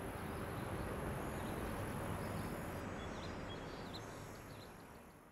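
Steady outdoor background noise with a low rumble and a few short, high bird chirps in the middle, fading out toward the end.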